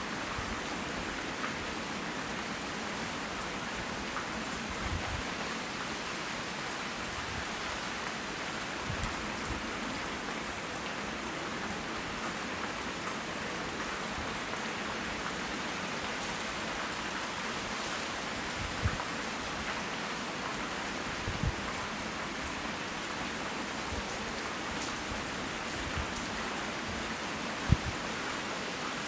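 Steady rain falling, with a few sharper taps scattered through it; the loudest tap comes near the end.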